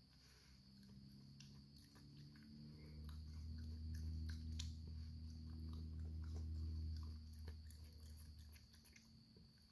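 Raccoon chewing and smacking on peanut butter sandwich bread: a string of small, quick, wet clicks. A low hum swells up about three seconds in and fades away shortly before the end.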